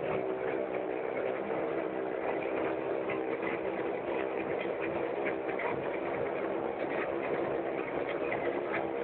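Several motorcycle engines running steadily as the bikes circle inside a steel globe-of-death cage.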